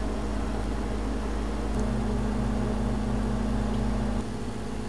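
Steady low mechanical hum over a hiss. The tone strengthens about two seconds in and thins out near the end, where the shot changes.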